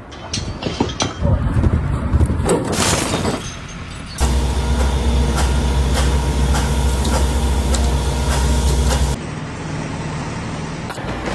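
Irregular clattering noise, then a loud, steady, low machine rumble like a heavy vehicle's engine that starts abruptly about four seconds in and cuts off abruptly about nine seconds in, leaving a quieter steady noise.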